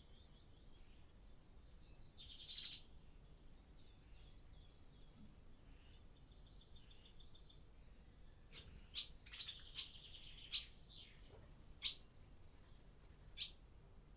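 Barn swallows twittering: a soft, rapid warbling chatter with a brief buzzy rattle about two and a half seconds in, then a run of sharp single chirps through the second half.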